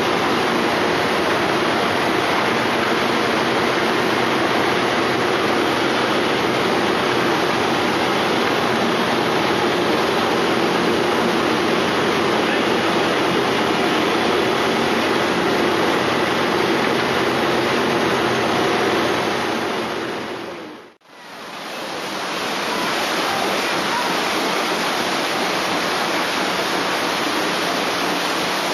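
Steady rushing churn of the steamboat Natchez's sternwheel beating the river and its engine room running. The sound fades to near silence about two-thirds of the way in, then swells back up.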